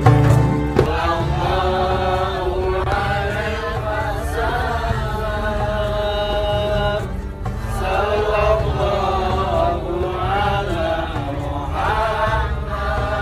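Background music of a solo voice chanting a melody in long, wavering held notes, phrase after phrase.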